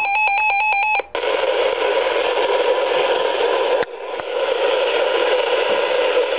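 Reecom R-1630 weather radio sounding its electronic alert, a rapid pulsing beep on two pitches, which cuts off about a second in and leaves a steady loud hiss of static from the receiver. A brief dropout comes near four seconds. The radio has gone off falsely for an unrecognized alert because of bad reception.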